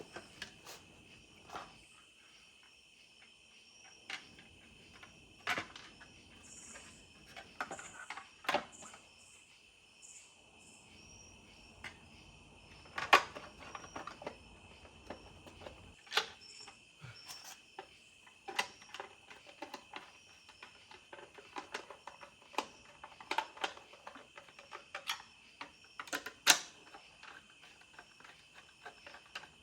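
Scattered clicks and knocks of a kayak's plastic side panels and their fittings being handled and put back on, the loudest two about 13 s and 26 s in. A steady drone of insects chirping runs underneath.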